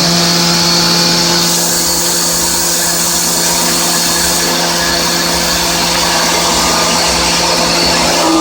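Hermle C20U machining centre trochoidal milling with a 16 mm end mill spinning at 4800 rpm, taking a 30 mm deep, 1 mm wide cut: a steady cutting hum with an even hiss.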